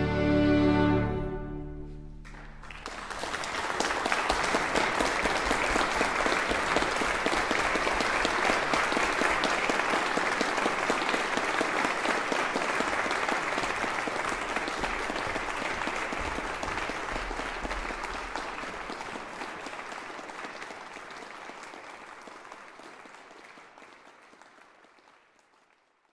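The final chord of a piano and string ensemble dies away, and audience applause begins about two and a half seconds in. The clapping holds steady, then fades out near the end.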